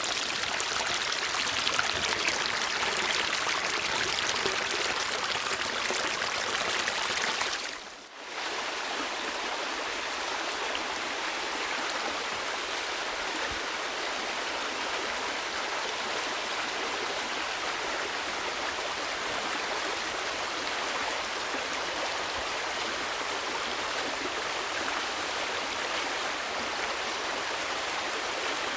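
Continuous flowing water, an even rushing noise. About eight seconds in it dips briefly almost to nothing, then carries on a little softer and thinner in the low end, as one water recording gives way to the next.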